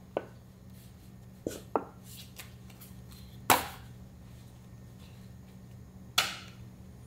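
Five short knocks and clatters of kitchen items being handled, the loudest about halfway through, over a steady low hum.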